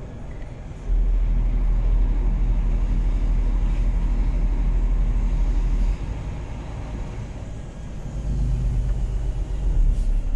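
Engine and road noise of a moving vehicle heard from inside its cab: a loud low rumble that steps up about a second in, eases off around six seconds, and builds again from about eight seconds. A few short sharp ticks come near the end as the vehicle reaches rumble strips before a speed hump.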